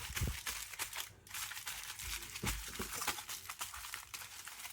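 Aluminium foil crinkling in a run of irregular crackles as it is handled and wrapped around a joint of beef.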